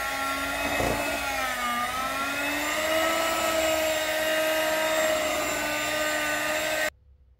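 Electric hand mixer running as its beaters whip cake batter: a steady motor whine that dips briefly in pitch about two seconds in, then stops abruptly near the end.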